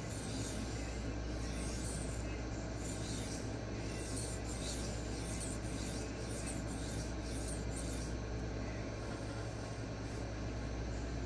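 D2 steel knife blade stroked by hand across a 1x6 inch diamond sharpening stone: a quick series of rasping scrapes that die away about eight seconds in.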